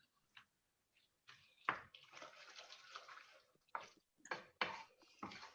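Kitchen sounds from cooking at the pan: a watery hiss for about a second and a half, then a few short, sharp knocks.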